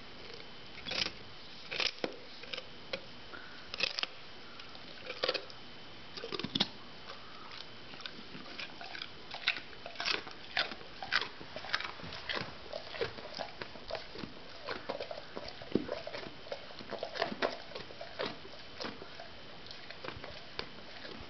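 A mastiff crunching on a raw carrot: irregular crisp bites and chewing, a few separate crunches at first, then coming quicker and denser for the rest of the time.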